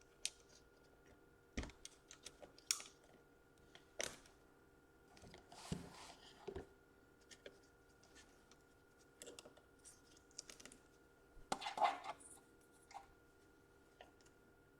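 Scattered small clicks, taps and scrapes of hands and a small tool working on an opened laptop's plastic parts and cable connectors, over a faint steady hum.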